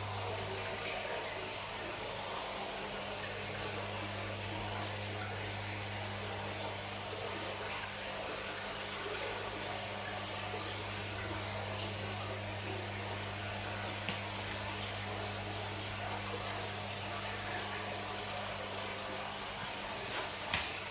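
Aquarium filtration running: a steady rush of moving water over a constant low hum. A single brief knock sounds near the end.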